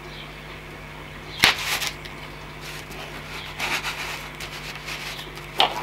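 Hook-blade knife cutting around a circle in PVC foam board: a few short, sharp scraping strokes of the blade, the loudest about a second and a half in and another near the end.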